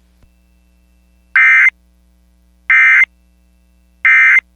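Emergency Alert System end-of-message code: three short, loud bursts of SAME digital data tones, about a second and a third apart, signalling the end of the alert.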